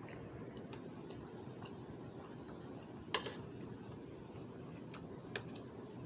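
Metal spoon and fork clinking against a plate while eating: one sharp clink about three seconds in and a smaller one about five seconds in, with faint ticks between, over a steady low hiss.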